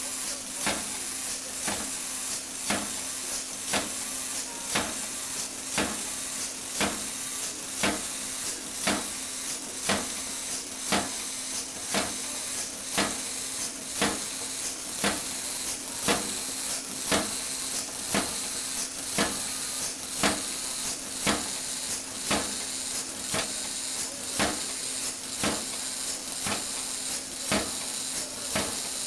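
Motorised Lego Technic walking robot running: its plastic gears and legs click in a steady rhythm, a little under two clicks a second, over a steady motor hum and hiss.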